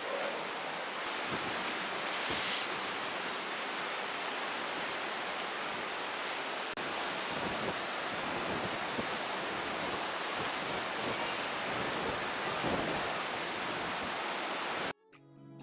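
A steady rushing noise with no clear pitch, cutting off suddenly near the end.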